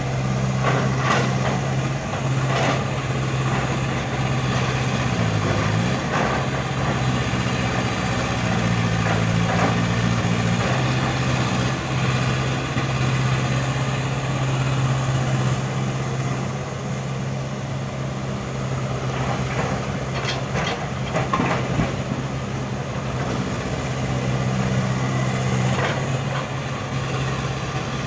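Excavator's diesel engine running steadily, its pitch dipping briefly about five seconds in, with scattered short knocks and clanks from the machine at work.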